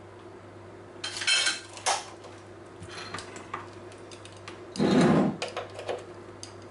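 Kitchen utensils being handled around a small saucepan: spoon and pot clinks and clatters, with a few sharp clicks about a second in and a louder, half-second knock-and-rattle about five seconds in.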